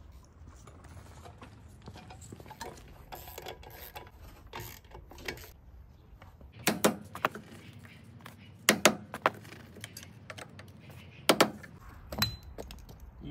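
Hand tools clinking and knocking against the stump grinder's metal wheel hub and parts. There are a few short, sharp knocks, scattered through the second half.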